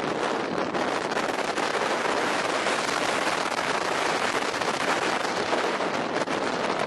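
Steady rushing, crackling noise of wind and water past a moving river boat, with the wind buffeting the microphone.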